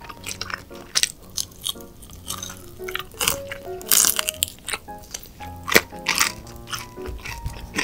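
Background music of held melody notes over close-up eating sounds: honey-glazed fried chicken being bitten and chewed, with sharp crunches and wet squishes that are loudest around the middle.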